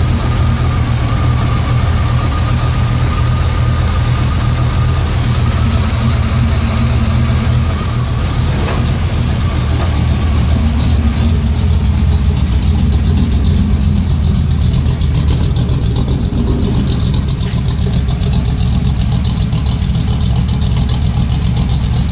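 1993 Chevy K1500's carbureted engine running at a steady idle of about 800 RPM on its new shorty spark plugs and plug wires. The idle is not quite smooth, which the owner puts down to the cam.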